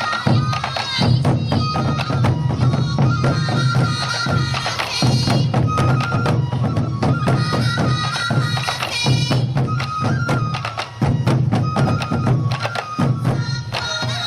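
Morioka Sansa Odori festival music: taiko drums struck in a fast, steady rhythm under yokobue bamboo flutes playing a high, held melody.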